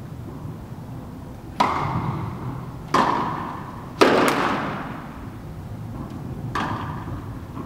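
Tennis rally: a ball being struck by rackets and bouncing on the court, four sharp pops with the loudest about four seconds in, each ringing on with the echo of an indoor tennis hall.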